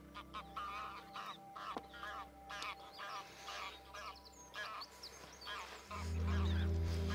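Waterfowl calling: a rapid series of short calls, many in a row. About six seconds in, a loud low steady hum joins.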